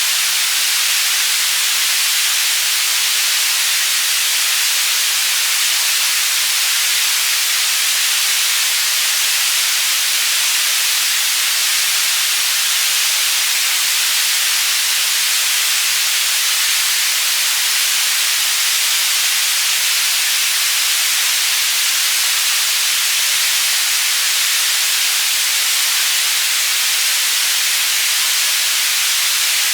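Synthetic white noise for tinnitus masking, panned from side to side: a steady, bright, even hiss with little bass.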